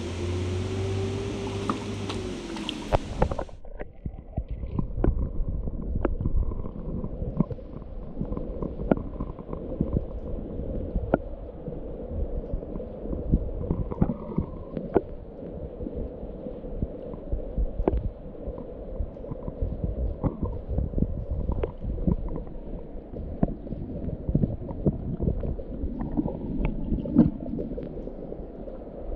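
Underwater camera audio in a trout stream: a muffled low rumble of moving water, dense with sharp clicks and pops. For the first few seconds before it, open-air stream hiss.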